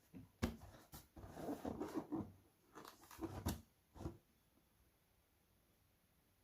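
Sneaker packaging being handled: rustling with several sharp taps and knocks over the first four seconds.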